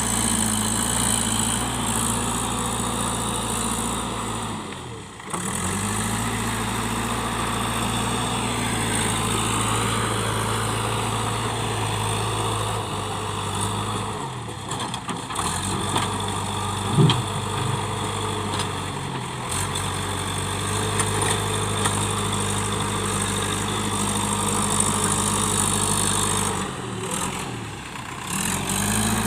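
Diesel engine of a JCB 3DX backhoe loader running steadily at a low, even speed. It drops away briefly three times, and there is one sharp knock just past halfway.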